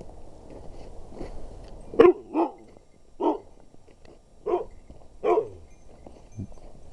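Husky barking: five short barks over about three seconds.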